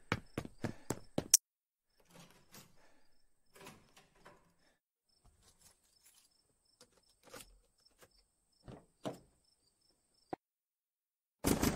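A quick run of sharp knocks, the last the loudest, then sparse faint knocks and handling sounds over faint chirping crickets. Near the end a Cessna single-engine plane's piston engine starts abruptly and runs.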